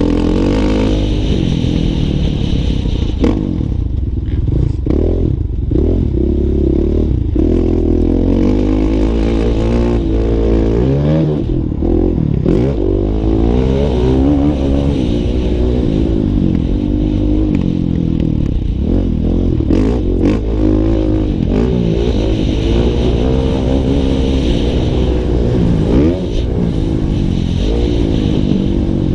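Motocross bike engine revving hard, heard up close from on the bike, its pitch rising and falling over and over as the rider accelerates, shifts and backs off through the turns. A few knocks and rattles come through over the rough track.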